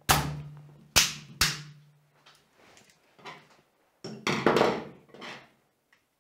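Hard plastic clicks and knocks from an emergency stop push button being handled: three sharp clicks in the first second and a half, then a quick flurry of rattling clicks about four seconds in.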